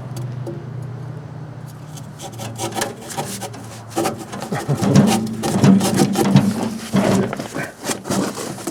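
Pruning saw cutting wood by hand in quick, uneven rasping strokes, starting about two seconds in and getting louder about four seconds in. It is the wrong tool for the job and cuts poorly.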